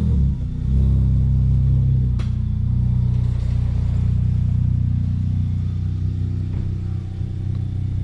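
Turbocharged VW Golf engine running at a steady speed, heard from inside the cabin as a low, even hum. A brief dip in level comes just after the start, and there is a faint click about two seconds in.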